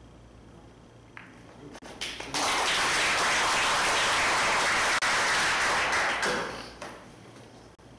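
Audience applauding for about four seconds, starting about two seconds in and dying away near the end. A single click of billiard balls comes about a second in.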